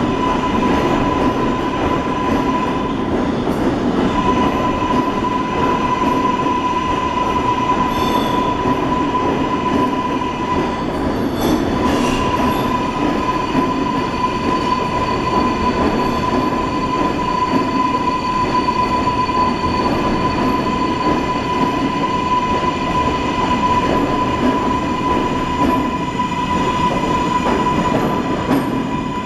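New York City Subway 7 train rolling past along an underground station platform and pulling away, its wheels rumbling on the rails with a steady tone held above the rumble.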